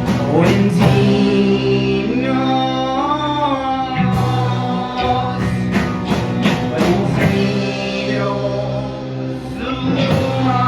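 A rock band's song playing: a singer's voice over held chords.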